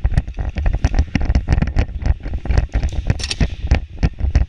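Airsoft gameplay noise: many quick, irregular sharp clicks of airsoft guns firing, over heavy low thumps of movement jostling the microphone.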